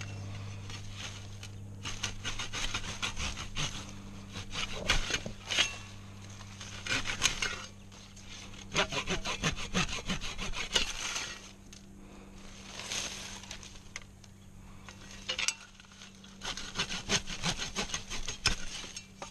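Serrated saw edge of a folding camping shovel sawing through a live tree branch. The back-and-forth strokes come in several quick runs with short pauses between them, over a steady low hum.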